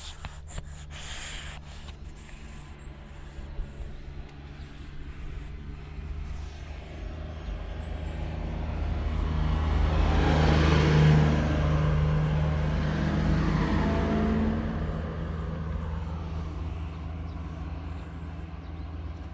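A motor vehicle drives past, growing louder to a peak about eleven seconds in and then fading away, over a steady low engine hum. Near the start, brief rubbing noises as cat fur brushes the microphone.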